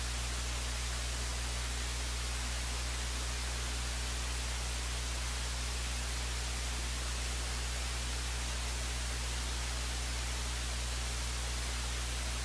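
Steady electrical hum with constant hiss, unchanging throughout: the noise floor of a dead or unused audio feed, with no game sound or commentary on it.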